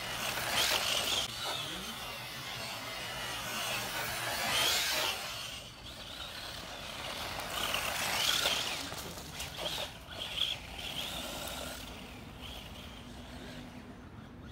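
Electric radio-controlled buggy, a Tamiya Hotshot on a 540 motor, driving hard on loose dirt: the high motor and gear whine mixes with the hiss of tyres throwing up dirt, growing louder in surges about a second in, around the middle and again a little later.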